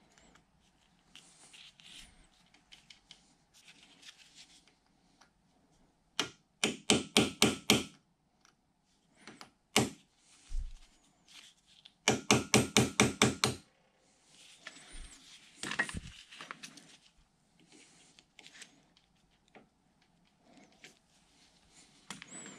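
Small hammer tapping a punch held against the key in a Bridgeport mill's downfeed shaft to drive out the stuck key: two quick runs of sharp metallic taps, about five a second, roughly six and twelve seconds in, with a few single taps between and light scraping of the tool around them.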